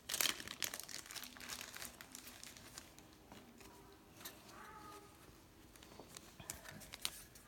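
Faint crinkling and crackling of plastic card sleeves and foil pack wrappers as trading cards are handled, loudest just at the start.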